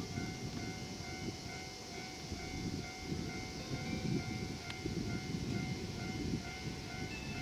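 KiHa 40-series diesel railcar train approaching with a low rumble, over a level-crossing warning bell ringing steadily about twice a second.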